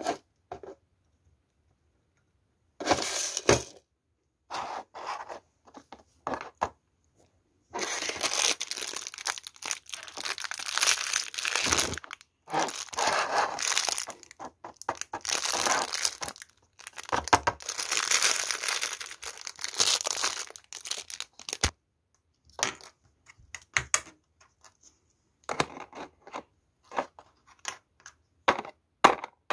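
A thin clear plastic mold crinkling and crackling as it is handled and pressed with fingers. There is a long stretch of dense crackling in the middle and scattered clicks and taps before and after it.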